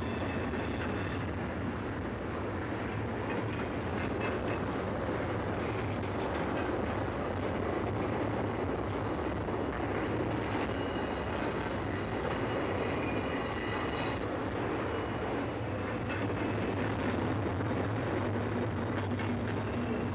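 Double-stack intermodal freight train's well cars rolling past: a steady rumble of steel wheels on rail, with scattered small clicks and a faint high whine that comes and goes.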